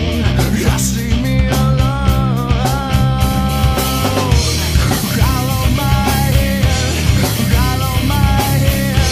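Nu metal / alternative metal band recording playing loud and steady. Heavy bass and drums drive it, with a held melodic line rising and falling in phrases above them.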